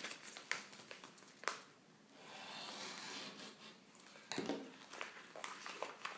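A plastic postal bag being handled and opened on a table: scattered crinkles and small taps, with a longer steady rustle starting about two seconds in.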